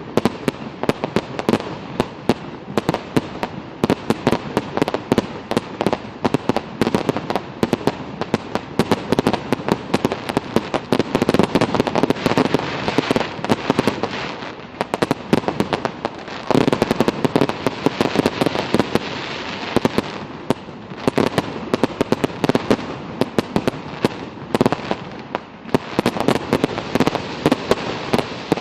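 Fireworks going off in a dense, continuous barrage of rapid bangs and crackling, thinning briefly twice before picking up again.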